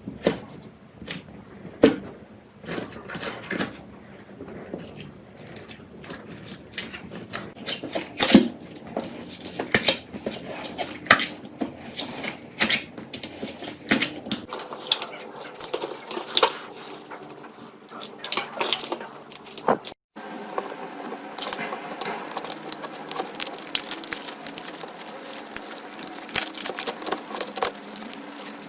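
Slime being squished and stretched by hand, giving wet, irregular clicks and small pops. There is a brief break about twenty seconds in, after which the crackling becomes denser and finer.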